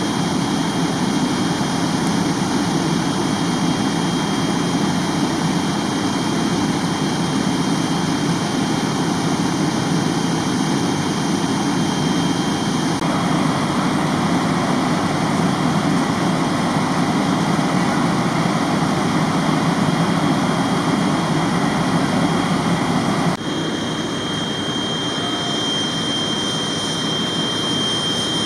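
Steady low engine drone of vehicles idling, with a faint steady high whine over it. The sound shifts abruptly about halfway through and again near the end.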